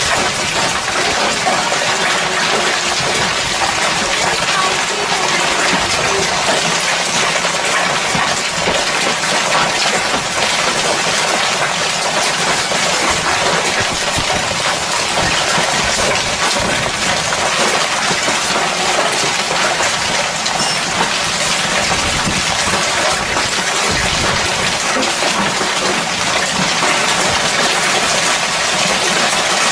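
Hailstorm: hailstones and rain falling hard, a dense, steady clatter of countless small impacts over a rushing hiss.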